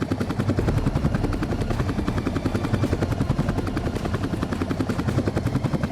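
Bell UH-1H Huey helicopter's two-blade main rotor making its distinctive 'whoop, whoop' chop over the turbine drone, a rapid, even beat of about seven pulses a second.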